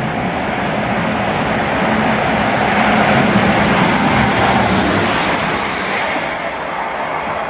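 Track-inspection train running by on the rail line, a steady rolling rumble and hiss that swells to its loudest about three seconds in and then eases off.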